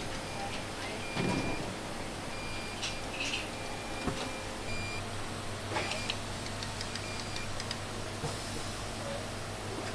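Steady low machine hum with short high electronic beeps and tones, and a few sharp clicks and knocks from earphones and small parts being handled at an earphone testing machine.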